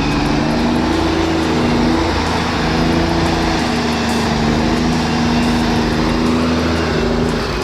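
Diesel engine of a Kenworth W900A logging truck pulling uphill under a load of timber: a steady low drone whose pitch shifts slightly.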